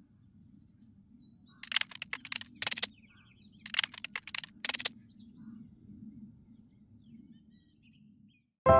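Keyboard typing clicks in two quick runs, about two and four seconds in, over a low outdoor rumble with a few faint bird chirps. Piano music starts suddenly right at the end.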